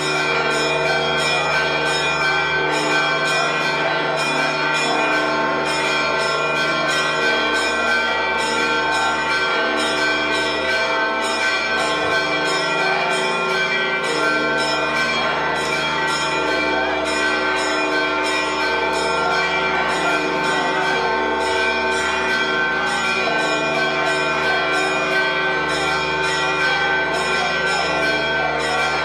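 Church bells pealing: several bells struck rapidly and continuously, their tones ringing on and overlapping into a dense, steady clamour. This is the festive ringing that greets the Holy Fire as it is brought out of the Holy Sepulchre.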